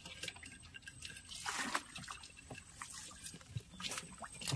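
Water trickling and splashing off a wet baited crab line as it is hauled up hand over hand from the river, with a brief splash about one and a half seconds in and a couple of small knocks near the end.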